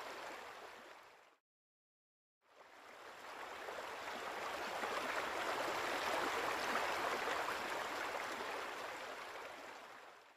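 Steady rushing of flowing water, like a stream. It fades out about a second in, drops to complete silence for about a second, then fades back in and runs on.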